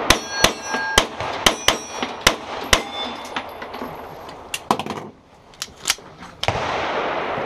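A string of about a dozen pistol shots fired in quick succession at steel plates, each hit leaving a brief metallic ring from the struck plate. There is a pause around four seconds in, then a few more shots. After the last shot a steady rushing noise comes in near the end.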